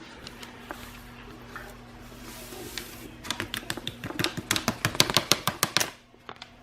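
Shake powder being added to a blender jar: a brief soft hiss, then a quick run of light taps, about four or five a second for nearly three seconds.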